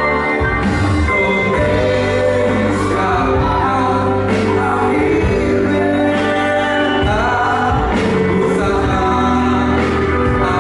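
Vocal group singing over an instrumental accompaniment with a steady bass, part of a medley of Indonesian patriotic songs; held, gliding sung notes with a few sharp percussive strokes.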